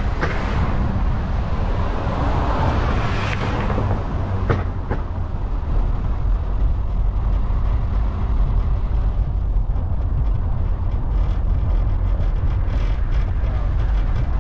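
Steady low rumble of road and engine noise from a car being driven. A hiss rises and fades over the first few seconds, and a few short knocks come about four and a half seconds in.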